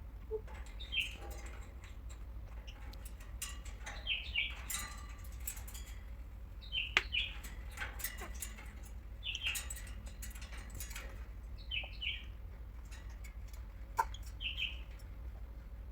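African grey parrot giving short, high chirps, mostly in quick pairs, repeating every two to three seconds.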